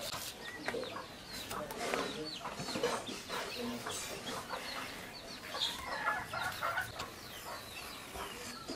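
Chickens clucking with short chirping calls throughout, mixed with a few soft scrapes of a knife paring the skin off a pointed gourd.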